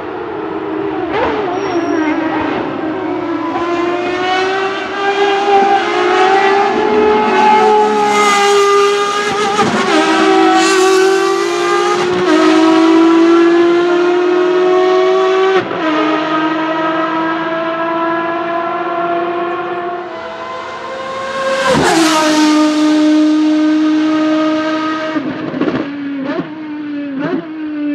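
A racing car's engine at full throttle on track. Its pitch climbs and then drops suddenly with each of several upshifts, and a few sharp cracks come from the exhaust near the end.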